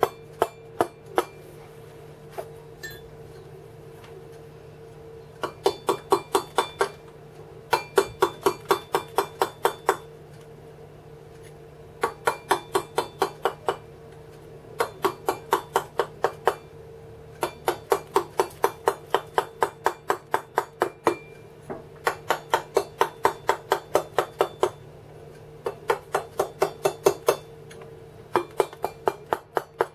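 Wooden mallet striking a cold steel chisel into carving stone, in quick runs of about six blows a second with short pauses between them.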